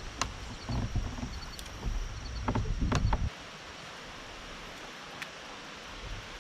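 Knocks, clicks and low thumps of gear being handled aboard a kayak for about three seconds, then a steady faint hiss.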